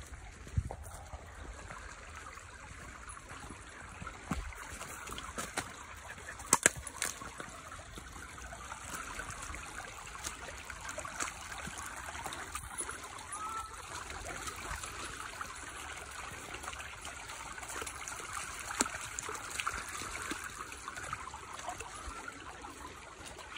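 Water trickling steadily in a small stream, with a few sharp knocks and rustles on top, the loudest a little over six seconds in.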